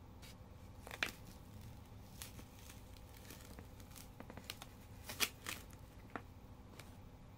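Clear plastic spoon clicking and scraping against a thin plastic takeaway tray while durian flesh is scooped out and lifted. There are a few sharp plastic clicks, one about a second in, the loudest just after five seconds, with lighter crinkly ticks between.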